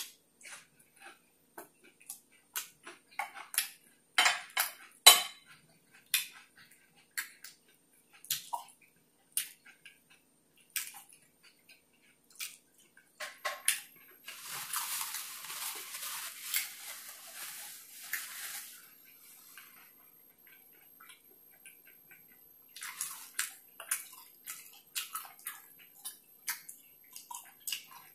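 Close-up eating sounds: a mouth chewing food, with many short wet clicks and smacks scattered through. About halfway through comes a few seconds of soft hiss.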